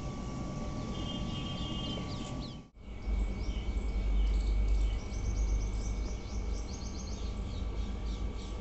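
Small birds chirping in quick runs of high notes over a steady background hum. The sound cuts out abruptly about three seconds in, then a low rumble comes in under the continuing chirps.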